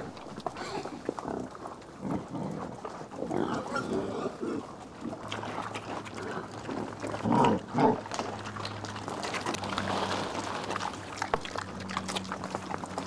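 Wild boars grunting as they root and feed on acorns, with sharp little clicks of acorns being crunched and chewed. The grunts come every few seconds, the loudest a double grunt about halfway through.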